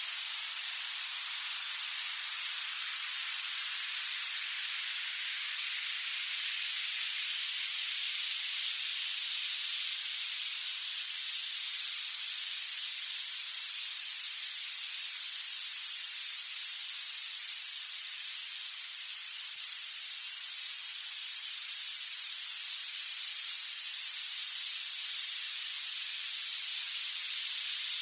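Violet noise: a steady, bright, high-pitched hiss whose energy climbs toward the very top of the range, with no low sound at all. It grows slightly louder through the middle stretch.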